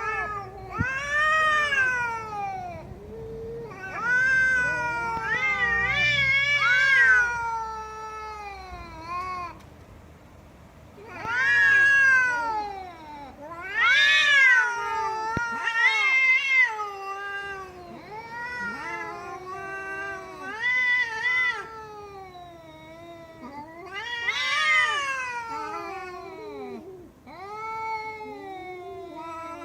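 A domestic cat meowing and yowling over and over, a string of long drawn-out calls that rise and fall in pitch, each a second or two long with short breaks between.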